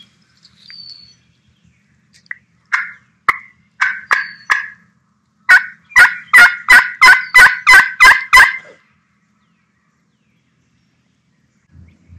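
Turkey call sounding hen yelps: a few scattered notes, then a loud, even run of about nine yelps, roughly three a second, calling to a gobbler.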